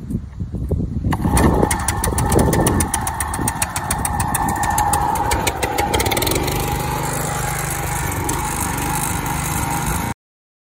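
John Deere walk-behind lawn mower's small petrol engine pull-started on choke, catching about a second in and then running steadily. Its note changes about six seconds in, and the sound cuts off suddenly near the end.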